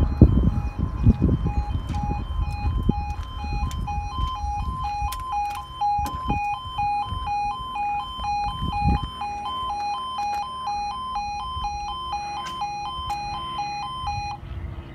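Level crossing yodel alarm: two electronic tones alternating quickly, sounding as the barriers lower across the road and stopping shortly before the end once they are down. A low rumble fills the first half.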